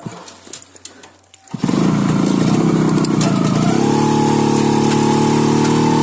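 Kawasaki motorcycle engine starting abruptly about a second and a half in, then running loudly and steadily, its pitch rising a little partway through as the bike pulls away.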